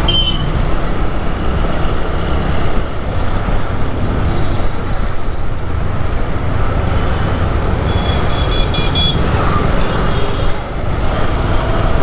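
Motorcycle engine running while riding slowly through town traffic, with the noise of surrounding traffic. A few short high-pitched beeps come about eight seconds in.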